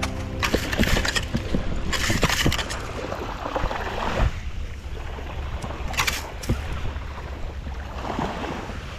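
Wet gravel and sand rattling and hissing through the holes of a perforated stainless-steel sand scoop as it is shaken. There are two spells of sifting, about two seconds in and about six seconds in, with scattered clicks of stones against the metal and a steady low rumble underneath.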